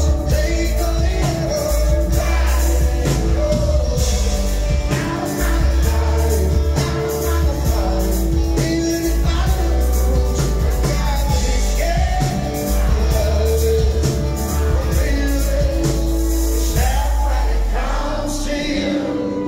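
A live country-rock band plays with a woman singing lead: drums, bass, electric guitar and strummed acoustic guitar. Near the end the cymbals and drums fall away and the sound thins out.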